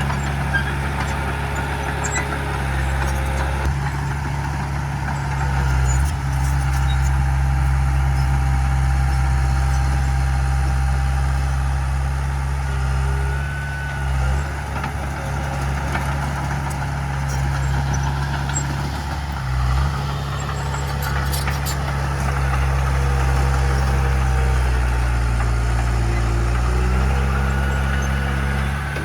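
Diesel engine of heavy earthmoving equipment running steadily under load, easing off briefly twice.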